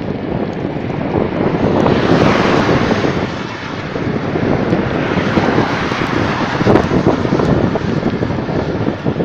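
Rushing wind and road noise from riding a bicycle at speed, swelling about two seconds in and again around five to seven seconds in.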